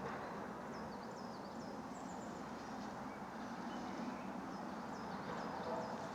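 A small songbird calling in two short runs of quick, high, downward-sliding notes, about a second in and again near five seconds, over a steady background of distant road traffic.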